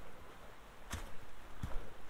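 Footsteps of a hiker walking on a trail covered in dry fallen leaves and stones: two steps, about a second in and near the end.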